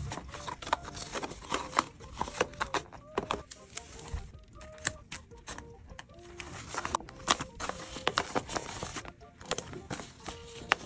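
Tape-covered paper being handled, pressed and folded: crinkling and crackling with many sharp little clicks and rustles.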